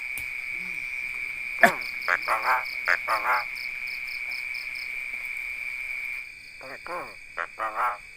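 Javan myna giving short calls: one sharp falling call about one and a half seconds in, a quick run of four or five short calls after it, and another run near the end. A steady high insect trill runs underneath and drops away after about six seconds.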